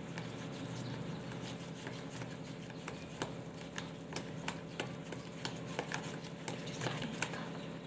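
Spoon stirring thick chocolate cake batter in a plastic bowl, with irregular clicks and taps of the spoon against the bowl's sides that come thicker in the second half. A steady low hum runs underneath.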